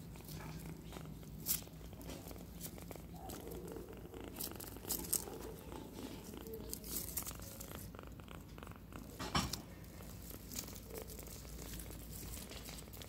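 A tiny kitten purring loudly and steadily as it is stroked. Sharp rustles and crackles of dry grass and leaves under the kitten and the hand break in a few times, the loudest about nine seconds in.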